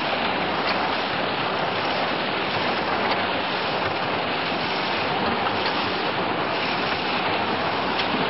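Twin-shaft cement mixer running, its mixing shafts churning the load with a steady rushing noise and a few faint ticks.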